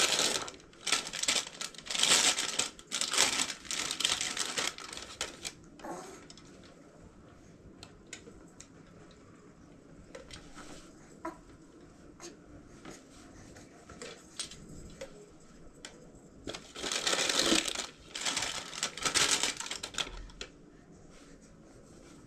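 Packaging crinkling and rustling as it is handled, in two spells of rough bursts with a few small clicks in the quieter stretch between.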